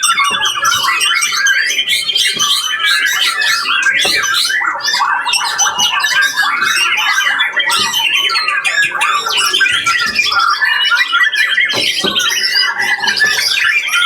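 Many caged songbirds singing at once in a contest round: a dense, unbroken chorus of rapid chirps, trills and whistles.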